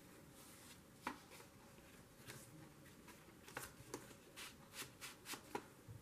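Faint rustling and light taps of hands handling and pressing down paper, a few short crisp clicks scattered through and coming more often toward the end.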